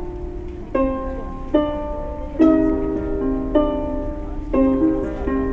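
A plucked string instrument played solo: about six chords and notes struck roughly a second apart, each ringing on and fading.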